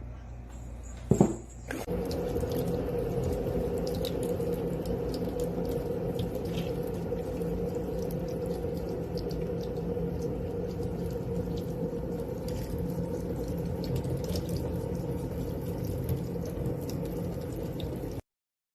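Steady running water, with small clicks and splashes, starting about two seconds in after a brief loud knock; it cuts off suddenly near the end.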